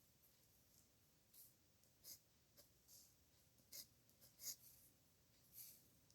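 Faint scratching of a pen on paper: a handful of short writing strokes with brief pauses between them.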